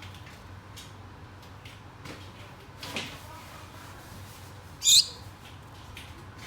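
Pet Gouldian finches giving short, faint, high calls, with a soft click about three seconds in and a brief, loud, sharp high sound about five seconds in.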